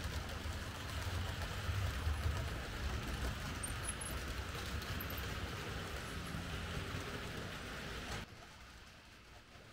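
Märklin H0 model train running on the layout's track: a steady low hum and rumble with an even hiss above it, which drops off abruptly about eight seconds in.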